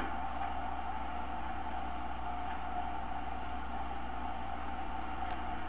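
Steady hiss with a constant hum underneath and no distinct event: the background noise of an old film soundtrack heard through a screen's speakers. A couple of faint ticks come near the end.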